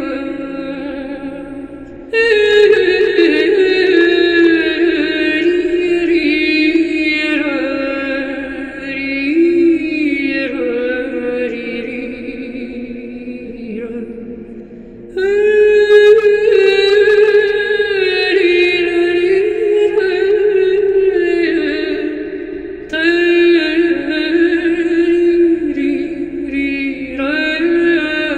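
Slow, chant-like vocal music: long sustained sung phrases that bend in pitch over a steady low drone. Loud new phrases come in sharply about two seconds in, again about halfway through, and once more near the end.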